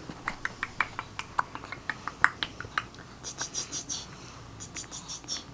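Rapid run of sharp clicks, about four a second, that thins out after about three seconds into a few short clusters of higher, faster clicking.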